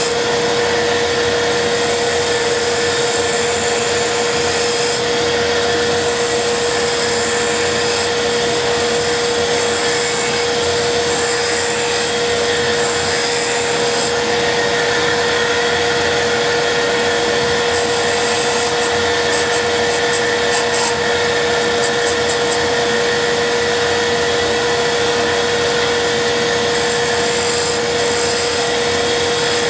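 Lathe running with a steady hum while a turning gouge cuts the spinning blank, throwing off shavings; a high hiss of the cut comes and goes in bouts as the tool is worked along the piece.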